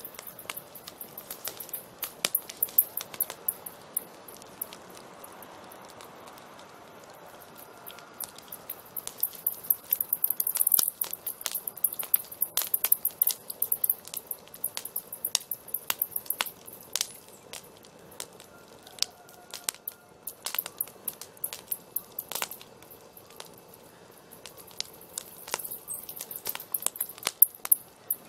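Campfire crackling: irregular sharp pops and snaps of burning wood over a soft hiss of flames, coming thicker for a few seconds about a third of the way in and again near the end.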